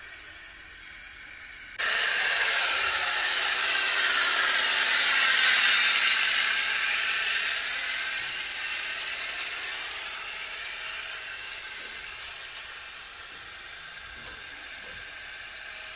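Loud, hissing rush of a tractor-drawn disc harrow tearing through dry, dusty stubble soil. It starts suddenly about two seconds in, swells as the tractor passes close, then slowly fades as it moves away.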